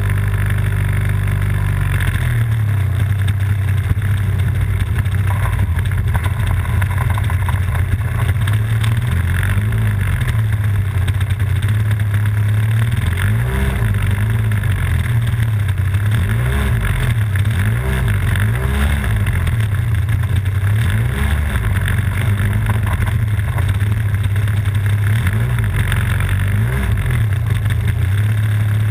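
Radio-controlled model biplane's engine running close to the onboard camera, its pitch wavering up and down over and over.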